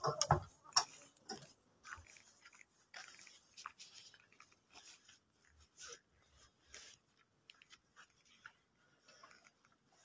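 Faint, scattered clicks and short rustles of footsteps and of the recording phone being handled while walking across a carpeted hall, after a brief louder sound at the very start.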